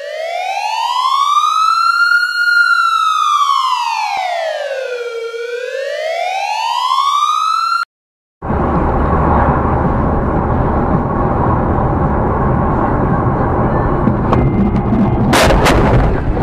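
Siren sound effect wailing in a slow rise and fall, about one and a half sweeps, that cuts off abruptly about eight seconds in. After a brief gap comes steady road and engine noise, with a couple of sharp bangs near the end.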